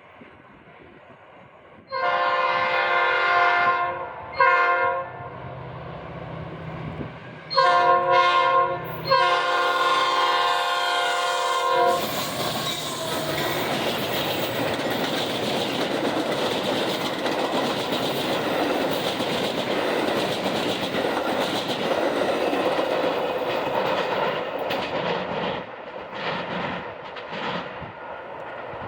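Metra commuter train's air horn sounding four chord blasts: long, short, long, then a longer one, over a low engine rumble. After the horn, loud, steady noise of the train on the rails follows and eases off near the end.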